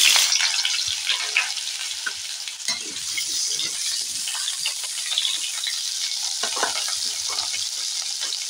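Cut potato pieces sizzling in hot oil in a metal kadai, loudest just as they go in and settling within a couple of seconds to a steady sizzle. A metal spatula scrapes and clicks against the pan as the potatoes are stirred.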